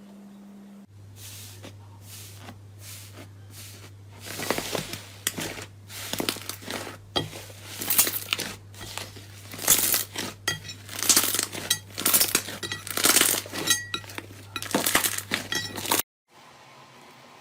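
Slime being squeezed and worked by hand, giving a dense run of crackling, clicking pops over a steady low hum; it cuts off abruptly near the end.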